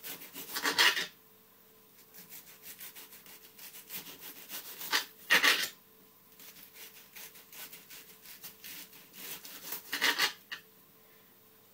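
Kitchen knife dicing a red onion on a chopping board: a run of quick small cutting strokes, with three louder spells of fast chopping about five seconds apart.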